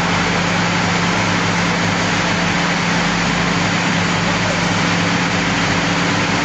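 Olive mill machinery running steadily: electric motors and conveyors giving a loud, even din with a constant low hum.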